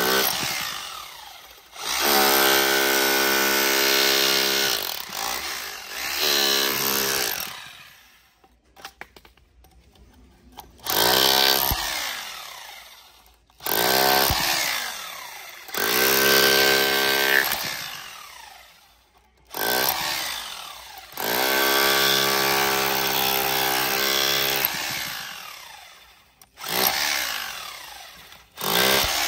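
A 1010 W Dalot rotary hammer in chisel mode, hammering a flat chisel into a concrete and stone block. It runs in repeated spells of one to four seconds, and each time the trigger is let go the motor winds down with a falling pitch.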